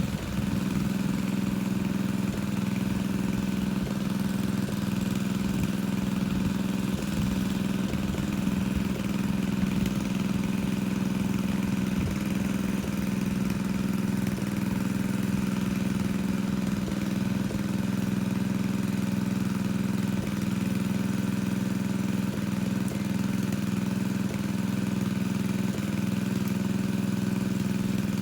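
Engine-driven water pump running steadily at constant speed, pumping a pond dry.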